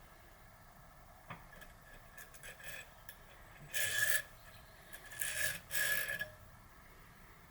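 Three short scrapes of metal on metal, about four, five and a half and six seconds in, with a faint ring, as a sealed bearing is worked out of a bicycle freehub body. A few faint ticks come before them.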